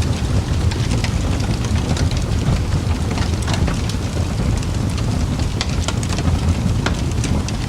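Fireplace crackling: a steady low rumble of burning wood with many sharp pops and crackles at irregular moments.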